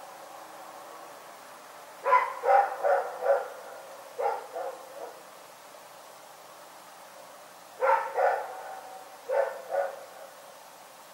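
Dog barking in short volleys: a quick run of about four barks about two seconds in, two or three more soon after, then two pairs of barks in the second half.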